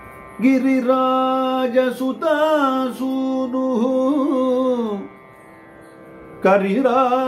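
A man singing a Carnatic devotional keertana solo, with long held notes ornamented by sliding and wavering pitch. Two phrases, with a pause of about a second and a half between them near the end.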